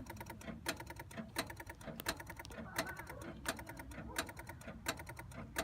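Repeated electrical clicking from a car's engine bay: a fast patter of fine ticks with a louder click about every 0.7 seconds. The clicking goes on with the car switched off and the battery connected; the owners suspect a loose battery or the alternator.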